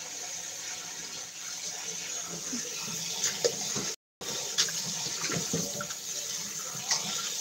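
Kitchen tap running steadily into a bowl in a stainless-steel sink while dried fish is rinsed and rubbed by hand, with a few light knocks. The sound drops out completely for a moment about four seconds in.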